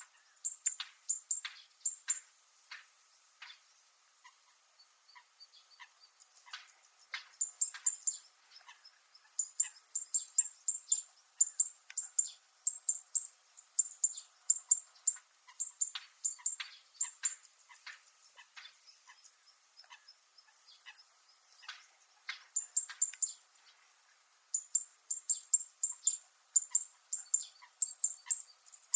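Zitting cisticola (fan-tailed warbler) giving its sharp, high, metallic calls, repeated in runs of about three to four a second and broken by a few short pauses.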